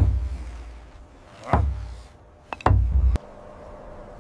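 Three deep booming hits about a second and a half apart, with a short shout from the rope-hauling crew on the second. The last hit cuts off suddenly, leaving a faint steady hum.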